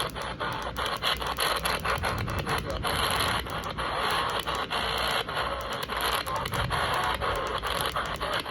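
Radio static from a weak weather-radio signal: a steady hiss broken by rapid irregular crackling clicks.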